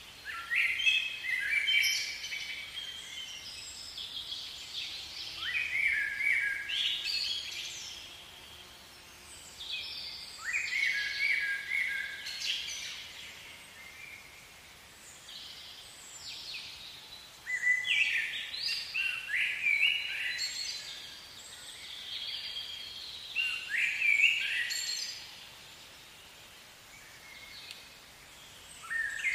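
Songbirds singing: short phrases of quick, high notes that step up and down, coming in bouts every few seconds over faint background noise.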